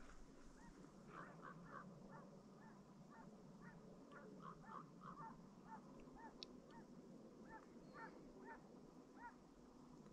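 A distant flock of geese honking: many short calls overlapping irregularly, two or three a second, faint.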